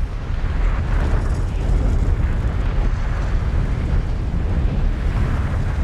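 Film sound design of desert wind: a steady deep rumble with rushing, hissing noise over it, like wind driving sand across dunes.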